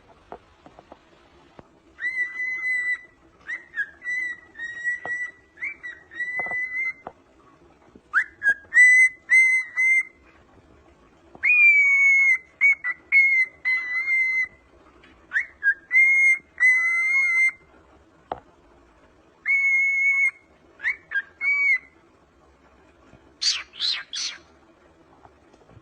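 Male cockatiel singing: phrases of clear, pure whistled notes, some gliding up or down, repeated in bursts of a few seconds with short pauses between. A few short harsh chirps come near the end.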